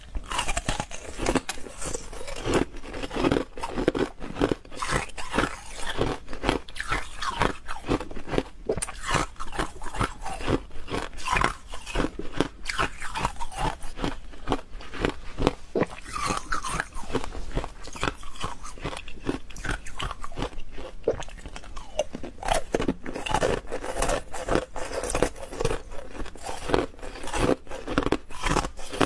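A person biting and chewing hard-frozen ice right at the microphones: many sharp crunches and cracks in quick succession as the ice breaks between the teeth.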